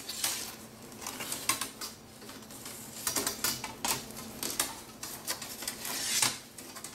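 Thin metal coat-hanger wire being pushed through a hole in a cardboard sheet and bent by hand: irregular scraping, rustling and light metallic clicks, louder for a moment near the end.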